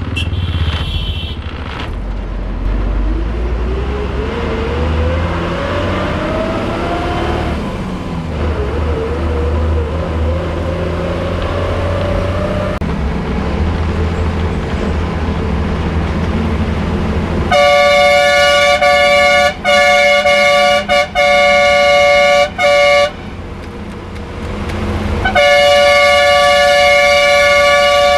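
Moving SBSTC bus heard from inside the cabin, its engine rising in pitch twice as it accelerates. Partway through comes a loud multi-tone horn blast, held for several seconds with a few short breaks, and the horn sounds again, held, near the end.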